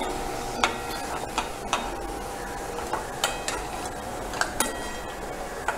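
A metal utensil clinking and knocking against a metal cooking pot while cooked basmati rice is spread in a layer over the biryani gravy: about nine irregular sharp clinks, some with a brief ring.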